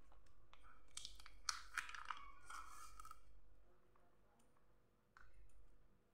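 A metal spoon scraping margarine across a slice of white bread, a faint crunchy rasp with a few light clicks in the middle. There is a second, shorter scrape near the end.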